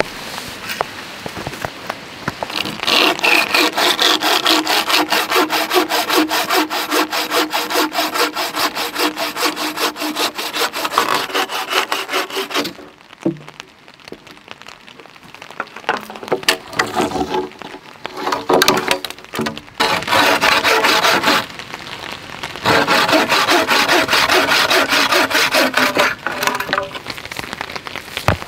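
Wooden frame bow saw cutting through a log with steady back-and-forth strokes, in a long run, then a pause of several seconds with a few knocks, then two shorter runs near the end.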